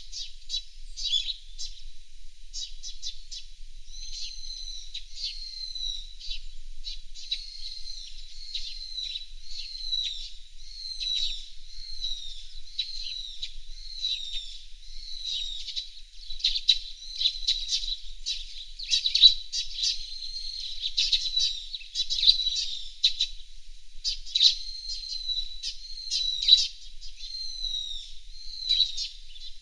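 Birds calling continuously: a dense run of short chirps and repeated high, downward-gliding whistles.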